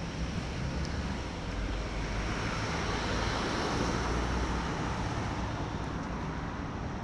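Paris Métro Line 14 driverless train running, a steady low rumble and rushing noise that swells about three seconds in and then eases off.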